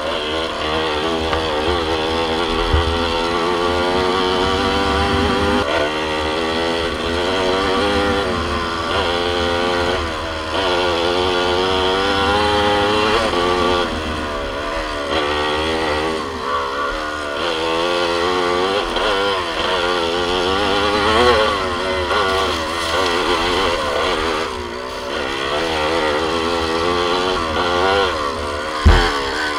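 Yamaha YZ125 single-cylinder two-stroke dirt bike engine, heard from on the bike while riding, its pitch rising and falling again and again as the throttle opens and closes through the gears. A sharp knock sounds near the end.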